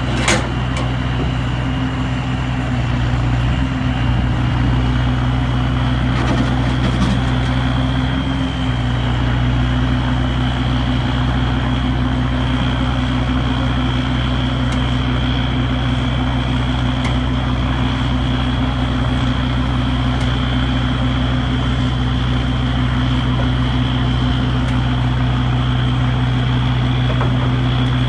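RTR40 rotator tow truck running its hydraulics to swing the boom: a steady engine hum with a steady high whine over it, and one sharp clank just after the start.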